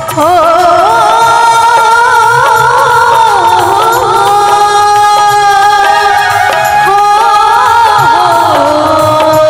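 A woman sings a bhajan in long, ornamented held and gliding notes. A harmonium and hand drums accompany her.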